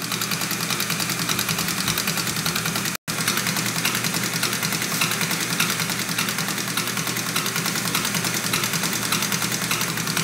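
A six-cylinder Mercedes inline diesel injection pump running on a test bench while it is being calibrated. It gives a steady mechanical drone with a rapid, even ticking. The sound drops out for an instant about three seconds in.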